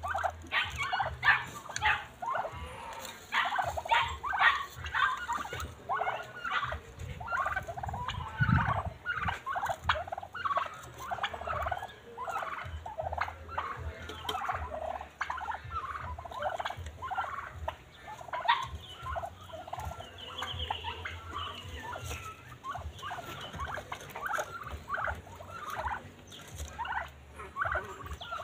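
Domestic turkeys calling: a continuous stream of short, rapid calls from several birds.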